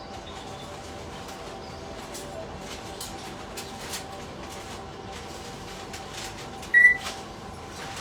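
Pet parrots moving about, with scattered light clicks over a steady faint hum. One parrot gives a single short, loud, high-pitched call about seven seconds in.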